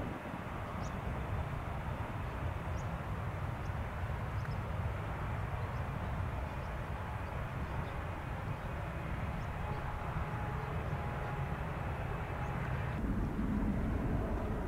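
Airbus A380's four jet engines rumbling at a distance, a steady low noise with faint bird chirps over it. Near the end the rumble changes suddenly and grows louder.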